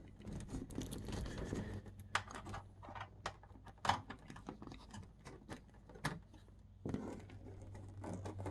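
An HDMI cable being handled and plugged into an AV receiver: scattered light clicks, taps and rustles of the connector and cable, a few sharper clicks among them, over a faint steady low hum.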